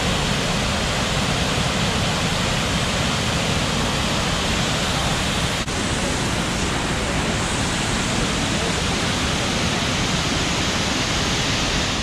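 Shihfen Waterfall's broad curtain of water pouring into its plunge pool: a loud, steady rushing noise with one very brief dip a little over halfway through.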